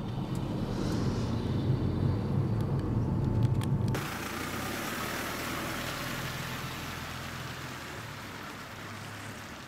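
A small community minibus: for about four seconds a steady low engine and road rumble heard from inside the moving bus, then a sudden change to a steady outdoor hiss as the bus pulls away on a wet road, slowly fading.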